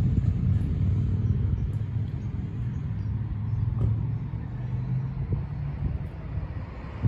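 Low engine rumble of a motor vehicle, a steady hum that eases off near the end.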